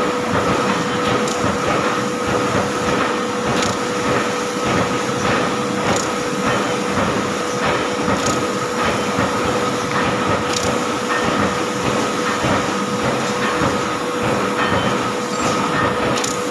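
Laser cutting machine running as it cuts a pattern in steel: a steady noise with a constant hum and a higher whine, and faint ticks every couple of seconds.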